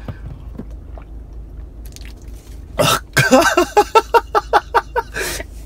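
A man breaks into quick rhythmic laughter about three seconds in, a sharp breath followed by short pitched bursts about five a second, ending in a breath out. A low steady car-cabin hum lies underneath.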